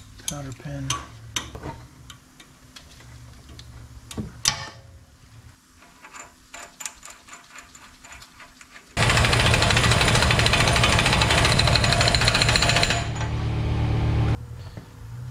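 Air-powered wrench running the hub nut down onto the new CV axle's threaded stub, starting abruptly about nine seconds in and running for about five seconds, easing off in its last second or so. Before it come scattered light clinks and knocks of tools and parts being handled.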